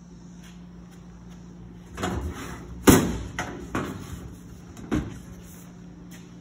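The stainless steel hinged lid of a Delfield refrigerated sandwich prep table being swung shut. A rattle starts about two seconds in, a sharp metal clap comes just before three seconds, and a couple of lighter knocks follow, over a steady low hum.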